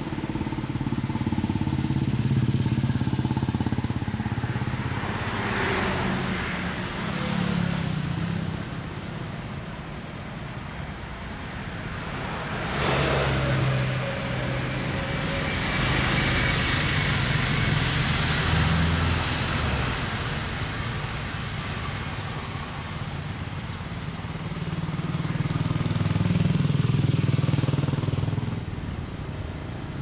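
Low engine hum of passing motor vehicles, swelling and fading several times, louder about two seconds in, again around the middle and near the end.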